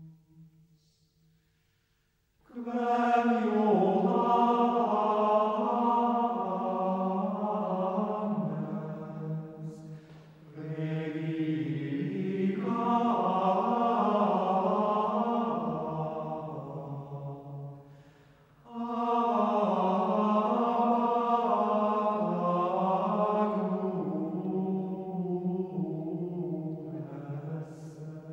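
Chant sung without instruments as background music, in three long phrases. The first begins about two and a half seconds in, and each phrase is separated by a brief pause.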